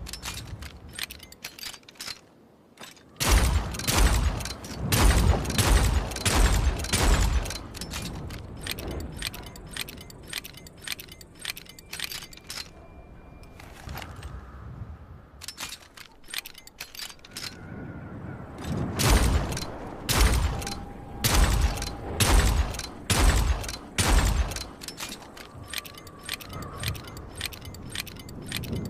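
Rapid, irregular metallic clicking and rattling, with two spells of louder knocks and thumps.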